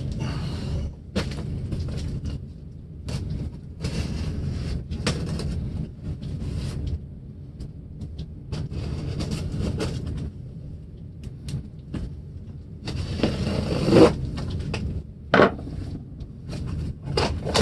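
A large cardboard shipping box being handled and opened: cardboard scraping, sliding and rustling, with short knocks. Two louder bumps come near the end.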